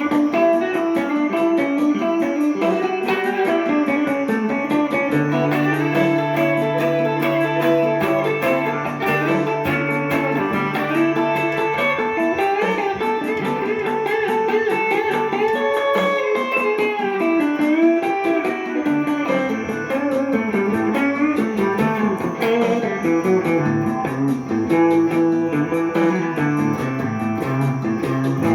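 Gibson ES-339 Custom semi-hollow electric guitar improvising jazzy melodic lines with an Indian flavour. A low note is held underneath for several seconds near the start.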